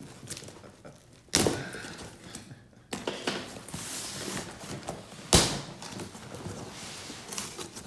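Cardboard shipping box knocking against a table twice, once about a second in and again about five seconds in, with rustling and scraping of cardboard between the knocks as the box is turned over.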